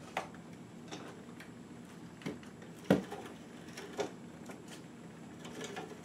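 Scattered knocks and clunks from a water heater tank and the hand truck it is strapped to as it is lifted over a doorway threshold, about five in all, the loudest about three seconds in.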